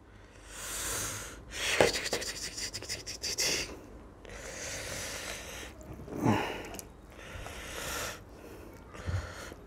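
Fingers mixing rice with prawns in greens gravy on a plate: soft wet squishing and scratchy clicks in patches, with breathing.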